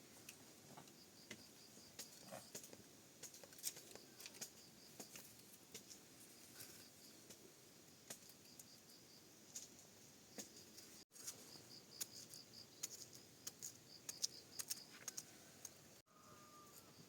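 Near silence, with faint insect chirping in a quick, even pulsing rhythm and scattered light clicks and taps.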